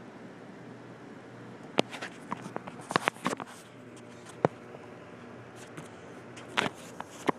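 Handling noise from a handheld phone: scattered sharp clicks and knocks over a steady low hum, bunched together around two to three seconds in and again near the end.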